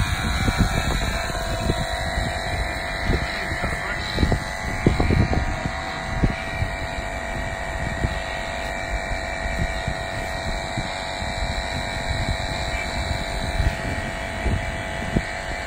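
Wind buffeting the microphone in irregular low gusts, over a faint steady hum.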